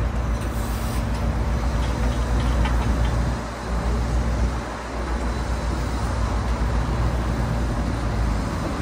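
Heavy diesel plant engine running steadily at close range, a low rumble that dips briefly twice.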